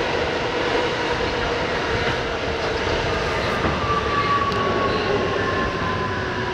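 Interior of an R68 subway car running through the tunnel: a steady rumble of wheels on rail with motor whine. About halfway through, a whine sets in that slowly falls in pitch as the train slows into the station.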